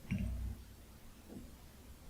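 A short, soft, low thump with a light click just after the start, then a faint click about a second later: close-miked handling noise between bites of gimbap.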